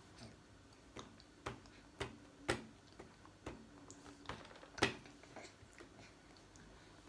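Quiet clicks and taps of spoon-feeding: a plastic baby spoon against the baby's mouth and the puree pouch, with the baby's mouth smacking. About seven sharp, irregular clicks, the loudest about two and a half and nearly five seconds in.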